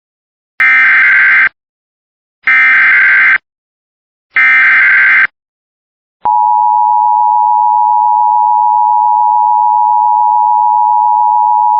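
Emergency Alert System header: three short bursts of warbling digital data tones (the SAME header), about two seconds apart. About six seconds in they are followed by the loud, steady attention tone that announces the coming alert.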